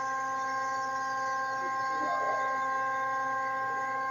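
Steady machine hum made of several fixed tones that hold unchanged throughout.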